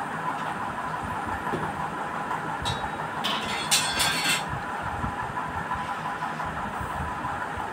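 A steady mechanical hum, with a few brief crackly rustles from about three to four and a half seconds in as a hand squeezes crumbly flour-and-mango batter in a glass bowl.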